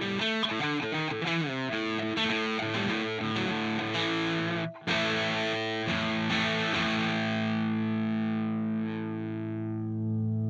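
Electric guitar played through a TC Electronic Mojo Mojo overdrive pedal, with a distorted tone: a riff of quick notes and chords, a brief stop about halfway, then a chord left to ring out and slowly fade.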